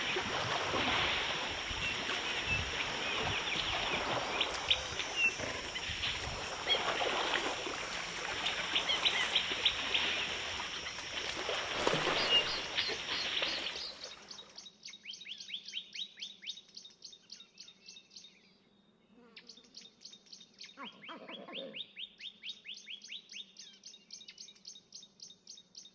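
Mud and water splashing and sloshing as African elephants wallow, with bird calls in the background. About halfway through this gives way to rapid, repeated chirping bird trills over a faint steady low hum.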